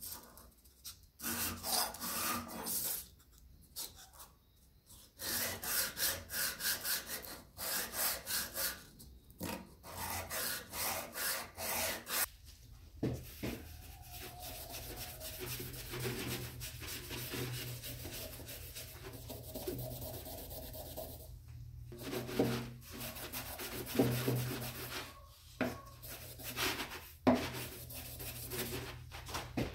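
Spokeshave blade honed on sandpaper on a wooden workbench: bursts of quick rasping strokes for the first dozen seconds. After that, a rag softly rubbing finish onto a wooden spokeshave, over a steady low hum.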